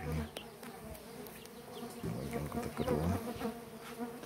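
Stingless bees buzzing close around an opened wooden stacked-box hive, their buzz wavering as they fly past, louder in the second half. A few sharp knocks come from the wooden box being handled.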